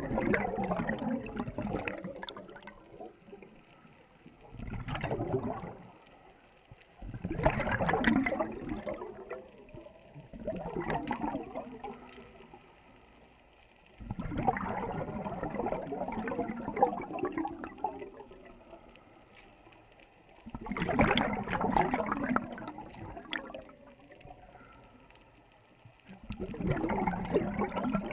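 Scuba regulator underwater, with a burst of rushing, gurgling exhaust bubbles on each breath out, about every four seconds, and quieter gaps between them.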